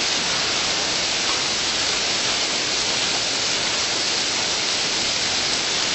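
A steady, even hiss with no distinct events, strongest in the upper range.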